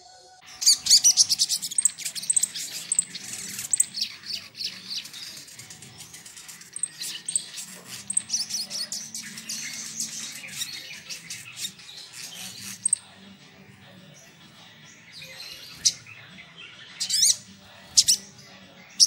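Brown-throated sunbird (sogok ontong) singing: long runs of rapid, high chirping trills for about thirteen seconds, then a few separate sharp calls near the end.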